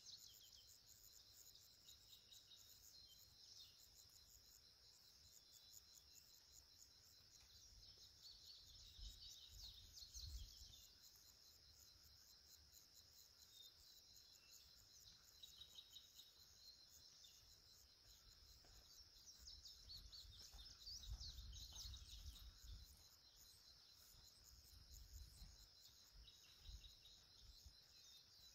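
Faint outdoor ambience: a steady high insect trill with scattered bird chirps over it, and a few soft low rumbles partway through and again later.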